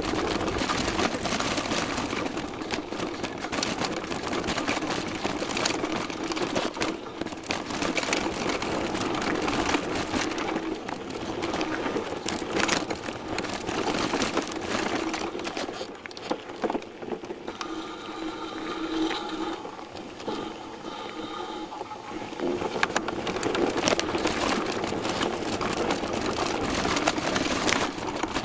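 A downhill mountain bike rattling and clattering continuously as it runs down the trail, picked up by a camera mounted on its fork. For a few seconds past the middle a high whine sounds over the clatter.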